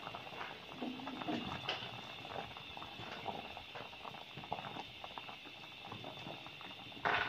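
Water at a rolling boil in a steel pot with whole tomatoes in it: steady bubbling and popping. A brief louder burst of noise comes just before the end.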